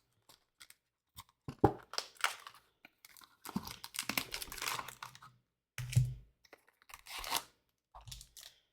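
Trading-card hobby box being opened by hand: cardboard and packaging tearing and crinkling in irregular bursts, with small taps and clicks.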